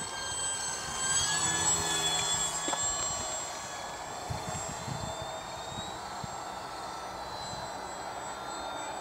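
HobbyKing Tundra RC plane's electric motor and propeller whining as it flies past, loudest about one to three seconds in, then fading as it flies off.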